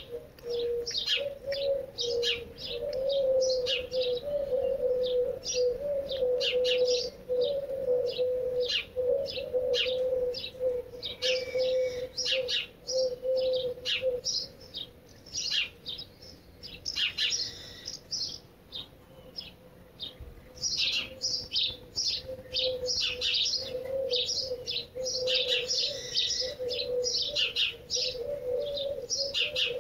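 Small songbirds chirping and twittering in quick, dense runs, over a pigeon cooing low and continuously. The cooing stops about halfway through and comes back near the end.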